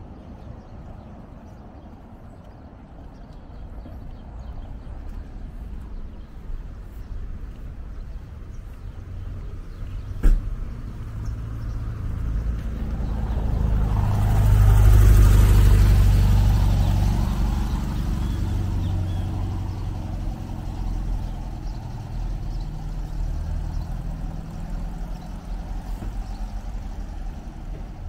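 Street traffic: a motor vehicle passes close by, its sound building to a peak about halfway through and then fading, over a steady low rumble. A single sharp knock sounds about ten seconds in.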